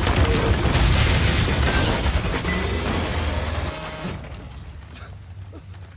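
Dramatic soundtrack music over loud crashing, booming action sound effects with a heavy low rumble. About four seconds in, these drop off sharply and fade.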